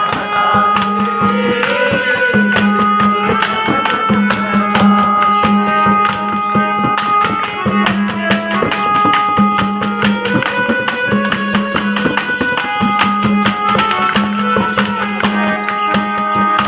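Instrumental interlude of Indian devotional folk music: a melody line over a repeatedly held low note, with busy, fast percussion strokes throughout.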